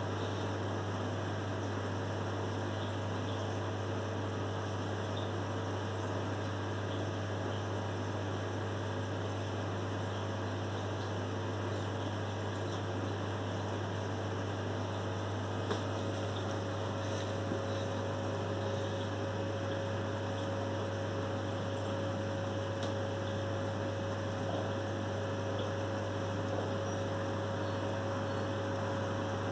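Steady low electrical hum over a faint hiss. A second, higher steady tone joins about halfway through.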